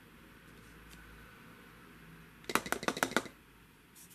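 Hollow hard-plastic nesting-toy shells clicking and knocking against each other as they are handled. The sound is a quick run of about eight sharp clicks about two and a half seconds in.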